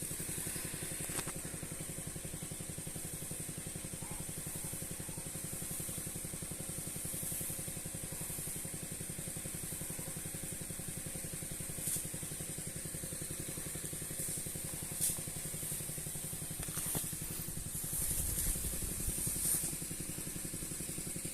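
Small petrol engine of a portable power sprayer running steadily at constant speed, with a steady hiss above it from the high-pressure spray.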